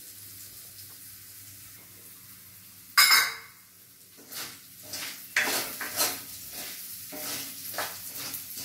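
Rice frying in ghee in a metal kadhai while it is roasted, turned with a plastic spatula. A faint sizzle comes first, then a loud clatter about three seconds in, followed by a run of irregular scraping strokes of the spatula through the grains against the pan.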